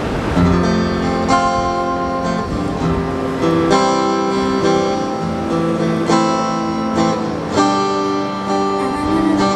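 Acoustic guitar strumming a steady run of chords, each chord ringing between strums and changing every second or so.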